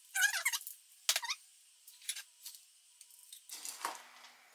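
A flexible plastic tub of potting soil being tipped and handled: short plastic squeaks at first, a sharp knock about a second in, then soft scattered clicks and rustling of the soil mix.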